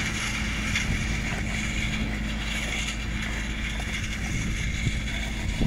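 Grapevine pruning machine running steadily with a constant low hum as it drives along the row, lifting the trellis wires and stripping off the pruned canes.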